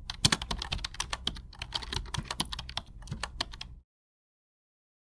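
Rapid computer keyboard typing, a fast run of key clicks, cutting off abruptly nearly four seconds in.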